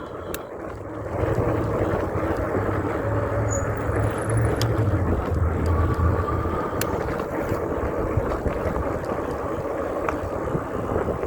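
Steady road and wind noise from riding an e-bike on a wet road, with a low rumble that fades out about seven seconds in.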